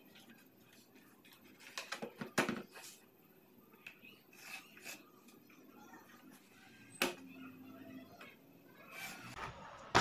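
Handling noise on a workbench: light knocks and clatters as a trim router and plywood pieces are set down and moved. There is a cluster of knocks about two seconds in, a single sharp knock around seven seconds, and a few more near the end.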